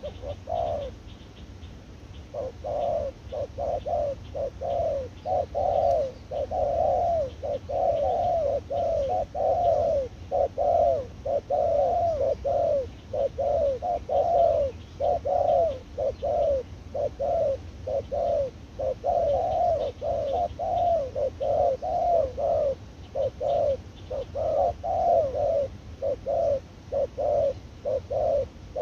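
Spotted doves cooing over and over in short repeated phrases, almost without pause after a brief gap about a second in.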